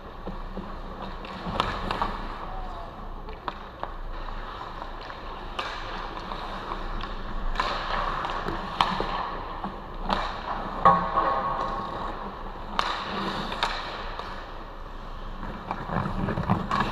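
Ice hockey play: skate blades scraping and carving the ice, with sharp clacks of sticks and puck scattered throughout.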